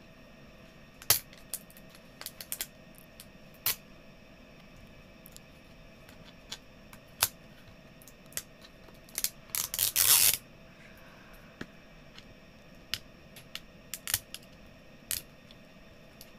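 Plastic toy packaging of an L.O.L. Surprise! Hairgoals ball being peeled open by hand. Scattered sharp clicks and crackles of stiff plastic wrap and tabs come every second or so, with a longer, denser crinkling about ten seconds in.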